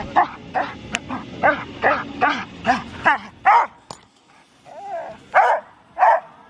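A dog barking rapidly and repeatedly, about two or three barks a second, pausing briefly after about four seconds before barking again. Two sharp cracks cut in, about a second in and near the fourth second.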